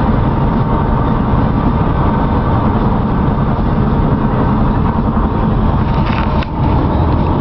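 Steady road and wind noise inside a moving car's cabin, with a brief dip in level near the end.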